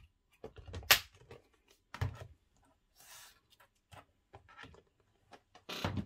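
Handling clatter of a plastic multi-compartment bead storage box and a small metal bead scoop on a tabletop: a few sharp clicks and knocks about a second in, two seconds in and near the end, with a brief soft rustle in between.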